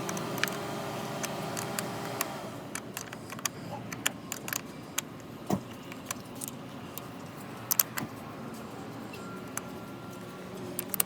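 Irregular small metallic clicks and clinks of a wrench working on the car battery's terminal clamp nuts as they are tightened down, over a steady background hum.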